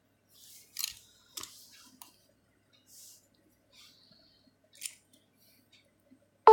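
A handful of faint, sharp clicks and short rustles spaced about a second apart: fingertip taps and handling of a smartphone, picked up by the phone's own microphone.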